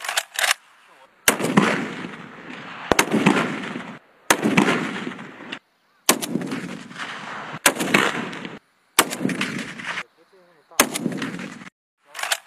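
A series of heavy rifle shots from a large-calibre, bipod-mounted sniper rifle: about nine sharp cracks, roughly one every second and a half. Each shot is followed by an echoing tail that fades over about a second.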